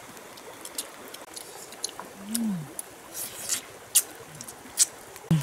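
Scattered short smacks and clicks of people eating grilled fish with their fingers, with a short hummed "mmm" that rises and falls about two seconds in, over a steady background hiss.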